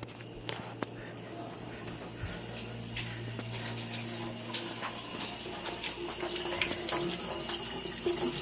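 Water running from a tap into a sink, slowly getting louder, with a few small knocks and clicks over it.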